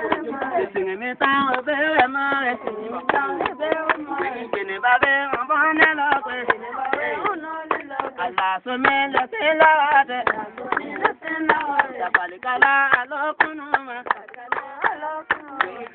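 Voices singing, accompanied by rhythmic hand-clapping.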